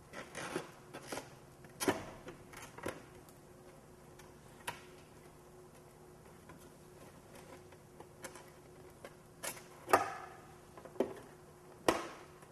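Clear plastic motorcycle windscreen being worked loose from the fairing by hand: scattered light clicks and knocks of plastic on plastic, the sharpest knocks about ten and twelve seconds in.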